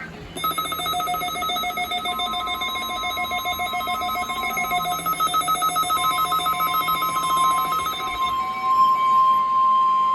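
NOAA Weather Radio required weekly test alert: a rapidly pulsing beeping alarm, stopping about eight seconds in, over a steady warning tone that grows louder through the second half.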